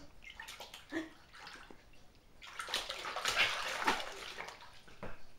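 Water splashing and sloshing in a Tummy Tub, a clear bucket-style baby bath, as a baby slaps and churns the water. It starts as a few small splashes, and a longer burst of splashing about halfway through is the loudest part.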